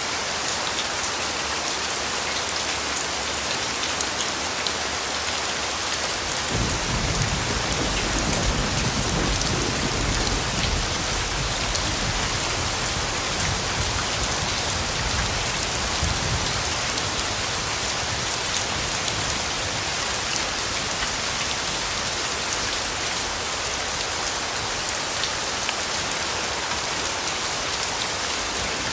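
Steady rain falling on a surface, a dense, even hiss of drops. A little way in, a low rumble of thunder sets in and dies away over about ten seconds.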